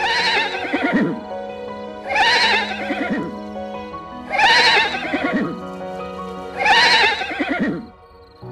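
An animal call with a wavering, falling pitch, repeated four times about every two seconds, each repeat nearly identical, over background music.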